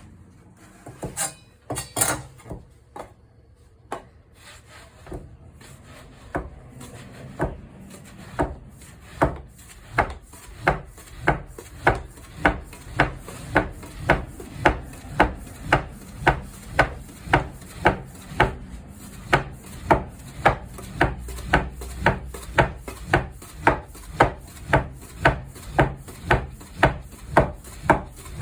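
A soba knife chopping buckwheat noodle dough on a wooden cutting board. A few uneven knocks settle into a steady rhythm of about two cuts a second, each blade stroke landing with a sharp knock on the wood.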